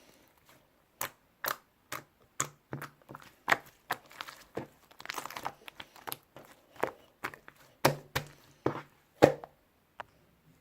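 Slime being worked by hand, squished and pressed, making irregular sharp popping clicks, with a longer crackly squelch about five seconds in.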